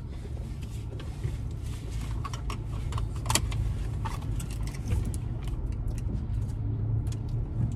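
Steady low rumble of a car heard from inside the cabin, with scattered light clicks and rattles.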